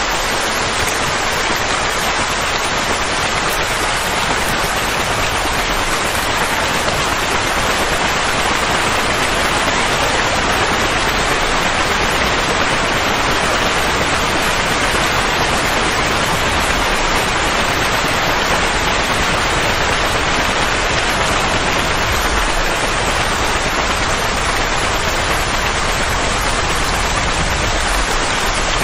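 Continuous, even rushing noise like heavy rain or falling water, a steady white-noise style soothing sound for calming a colicky baby.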